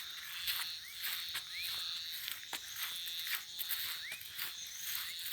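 Night chorus of insects, a steady high buzz, with a frog giving several short rising calls and a few faint clicks.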